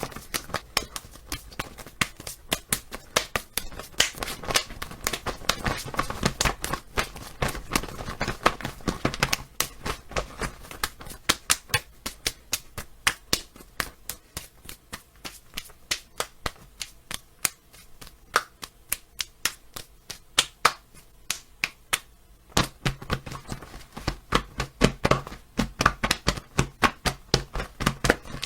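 Slap sound effect: a rapid series of sharp hand slaps, several a second, thinning out and quieter through the middle before picking up again near the end.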